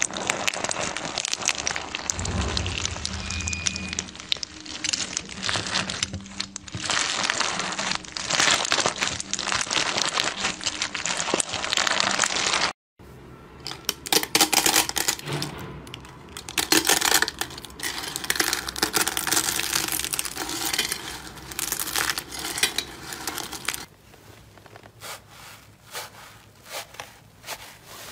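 Slime packed with small plastic alphabet beads squeezed and kneaded by hand, the beads grinding and clicking against each other in a dense crackle. About halfway through, after a brief cut to silence, thin dried soap flakes are crushed and crumbled under the fingers with crisp crinkling and snapping, turning quieter and sparser near the end.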